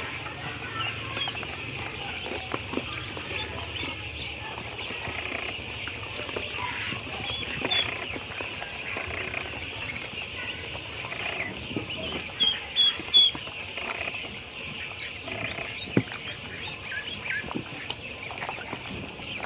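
Ducklings peeping constantly as they swim and dabble in a shallow plastic pool, with small splashes and water patter. A few louder peeps come close together about two-thirds of the way through.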